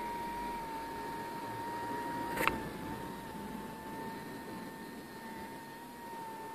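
Homemade cardboard air blower's 6 V high-speed DC motor running steadily: a high, even whine over the rush of air from its impeller. One sharp click about two and a half seconds in.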